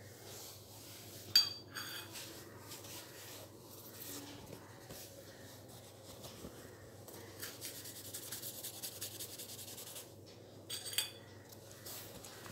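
A small steel bowl clinks twice on a hard floor, each knock leaving a brief metallic ring, with a stretch of light rapid scratching or rubbing between the two knocks.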